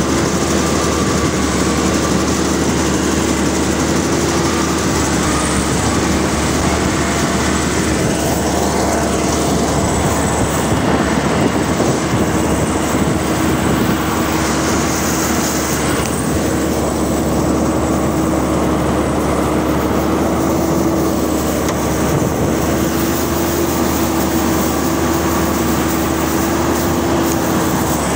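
Rice combine harvester running steadily: engine and threshing machinery giving a constant mechanical drone with a steady hum.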